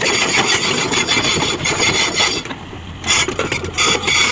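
Plastic toy excavator scraping and rubbing as it is handled, a continuous rasping that eases briefly just past halfway, then picks up again.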